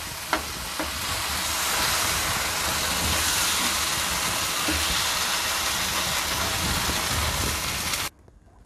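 Mixed leafy-greens curry sizzling in a hot nonstick pan as a metal spoon stirs it, with a couple of clicks of the spoon against the pan in the first second. The sizzle cuts off suddenly near the end.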